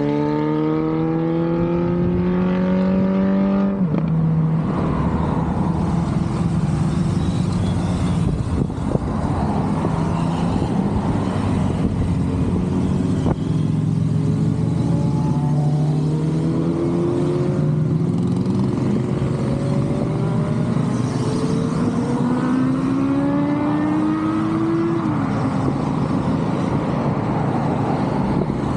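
A steady stream of motorcycles riding past, their engines blending into one continuous sound. Individual bikes can be heard accelerating, with the engine note climbing; one drops sharply in pitch at a gear change about four seconds in.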